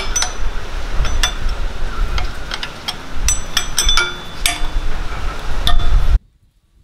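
A metal spanner clinking and ticking irregularly against the 16 mm high-pressure line fitting of a power steering pump as the fitting is tightened, over a low rumble. The sound stops abruptly about six seconds in.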